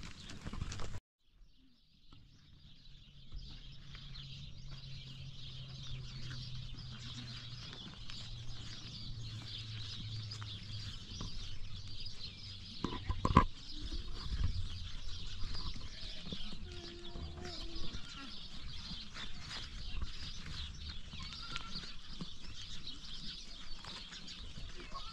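Outdoor ambience: a steady high-pitched chirring, with a low hum through the first half and scattered small clicks. A single sharp knock comes about halfway through.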